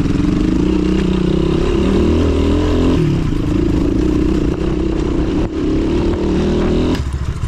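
Dirt bike engine running as it is ridden over a rough gravel track, the note wavering with the throttle and shifting about three seconds in. The loud engine note drops away near the end.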